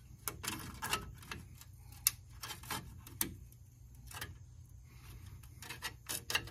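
Irregular light clicks and metallic taps of hands refitting ABS brake lines and their clips in a pickup truck's front suspension, over a steady low hum.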